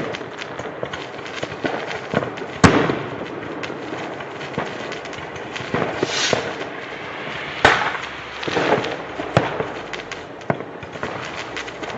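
New Year's Eve fireworks and firecrackers going off in a dense crackle, with sharp louder bangs about two and a half seconds in, near eight seconds and again near nine and a half seconds, some followed by a short hiss.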